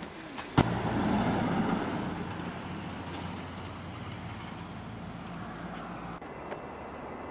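A sharp click about half a second in, then a steady low engine-like rumble, as of a vehicle running nearby, loudest just after the click and easing off.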